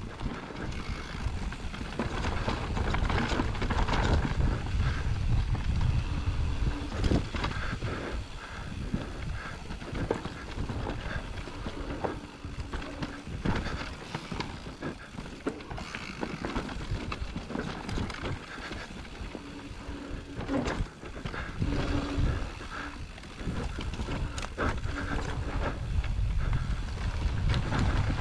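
Electric mountain bike ridden fast down a rooty dirt forest trail: tyres rolling and skidding over dirt, with the bike knocking and rattling over roots and bumps. A low rumble of wind buffets the microphone throughout.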